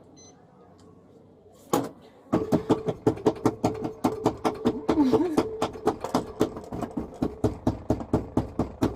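One thump, then fast repeated banging, about five knocks a second, over a steady hum, starting about two seconds in and running on loudly.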